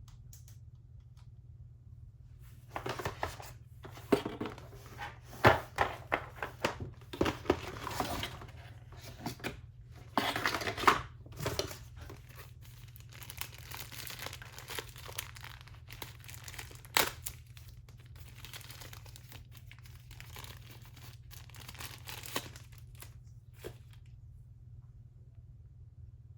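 Packaging being unwrapped by hand: wrapping crinkling and tearing with small knocks, in irregular bursts. It is busiest and loudest from about three to twelve seconds in, then thins out and stops shortly before the end.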